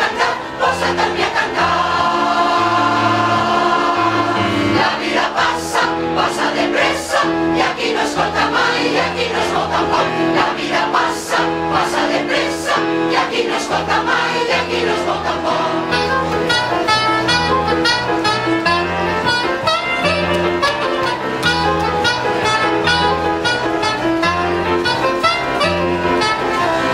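Mixed choir singing a song with a small live band of keyboard and brass, over a steady bass line and beat.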